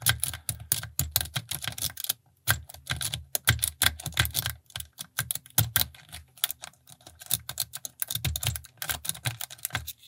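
A snake rake scrubbing in and out of a Brinks 30 mm brass padlock's pin-tumbler keyway: a dense run of rapid metallic clicks and scrapes as the pins are jostled, with a brief pause about two seconds in. The tension wrench keeps slipping, so the lock does not open.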